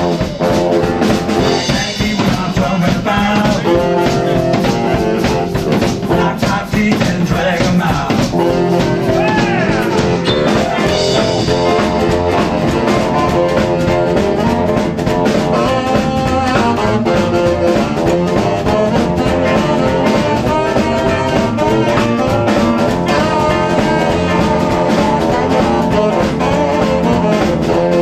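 Live garage-swing band playing: hollow-body electric guitar, upright double bass, drum kit and baritone saxophone.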